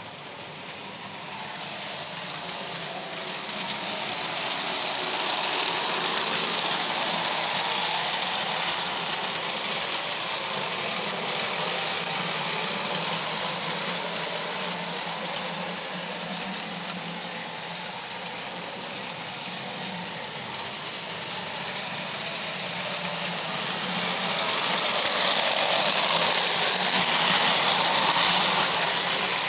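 Bing gauge 1 tinplate electric locomotive running on tinplate track: a steady mechanical rattle from its motor gearing and wheels on the rails. It grows louder over the first few seconds and is loudest near the end.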